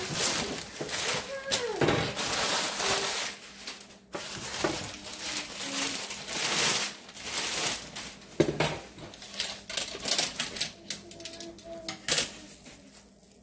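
Brown packing paper rustling and crinkling as it is handled and pulled away, with irregular clicks and light metallic clinks from wire deep-fryer baskets.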